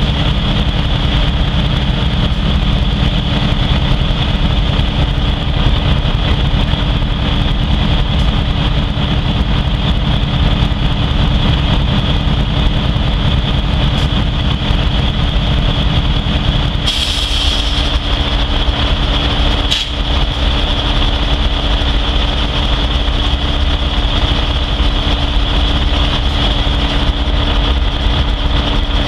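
A heavy engine idling steadily: a low rumble with a steady high whine above it. A short hiss comes about seventeen seconds in, after which the rumble drops a little.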